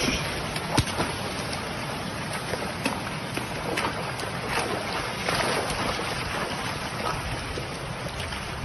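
Floodwater rushing over a low causeway, a steady rush broken by a few short knocks.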